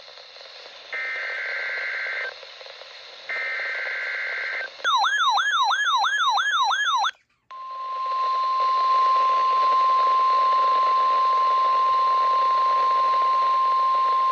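NOAA Weather Radio Required Weekly Test alert heard over a radio with a faint static hiss. First come two bursts of the SAME digital header's two-tone data screech. Then there are about two seconds of a separate bright warbling alert tone sweeping upward about four times a second, a brief dropout, and the steady 1050 Hz warning alarm tone.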